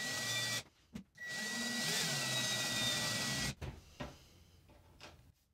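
Cordless drill boring a starter hole through a thin sheet-steel panel with a twist bit, in two runs: a short one at the start and a longer one of about two and a half seconds. Each run has a steady high whine. It goes quieter after about three and a half seconds.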